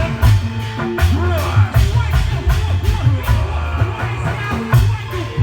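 Live Indramayu reog troupe music: drums beating a busy rhythm with struck percussion, and voices over it.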